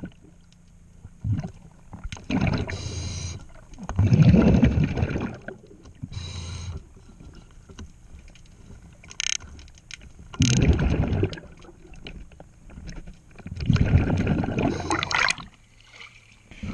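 A scuba diver breathing underwater through a regulator: hissing inhalations and bursts of rumbling exhaust bubbles every few seconds.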